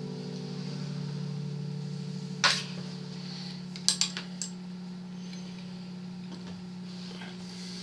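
Acoustic guitar's last chord ringing out and fading over a steady low hum, then a sharp knock about two and a half seconds in and a quick cluster of clicks and knocks about a second and a half later, as the guitar and nearby things are handled.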